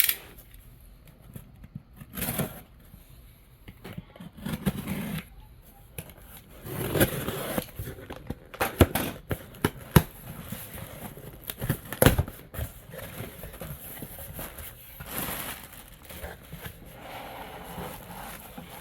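Unboxing a shipping box: packaging rustling, crinkling and tearing, with several sharp clicks and knocks as the box and its contents are handled.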